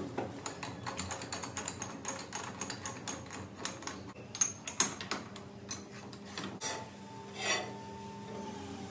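Quick metallic clicking and tapping, with a few louder knocks about halfway through. Then a machine's steady hum with a higher steady tone sets in for the last few seconds.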